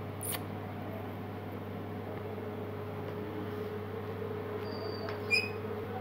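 Steady low room hum, with a faint tick just after the start and one brief high squeak from an Indian ringneck parakeet about five seconds in.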